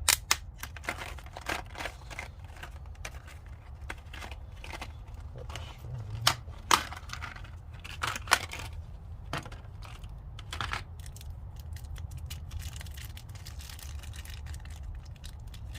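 A Gearwrench metric drive adapter set being unpacked and handled: a run of sharp clicks, taps and crinkling of packaging, densest in the first ten seconds or so, then sparser. A steady low hum runs underneath.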